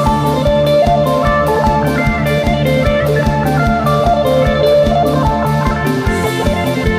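Isan folk music: a plucked phin lute melody over a steady, fast drum beat and a sustained low drone.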